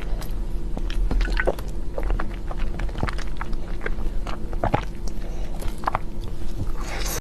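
Close-miked chewing of soft chocolate cake: moist, squishy mouth sounds with small irregular smacks and clicks over a steady low hum.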